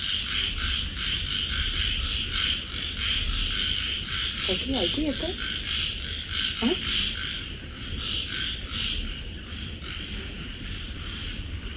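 Night chorus of frogs and insects calling steadily, a dense pulsing trill, with a brief faint low sound near the middle.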